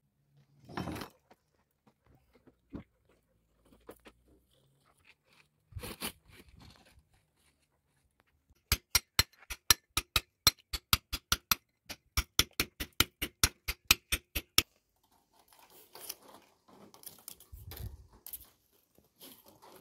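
Hand hammer striking repeatedly at the base of a concrete column's wooden formwork: two quick runs of sharp blows, about four a second, with a short break between them. A couple of single knocks come before, and scraping and handling noises follow.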